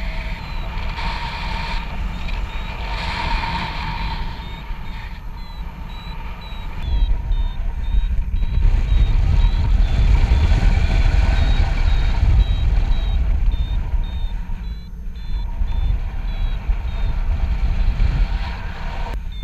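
Paragliding variometer beeping in short, high-pitched pulses about twice a second: its climb tone, which signals rising air. Wind buffets the microphone under it, growing louder about seven seconds in.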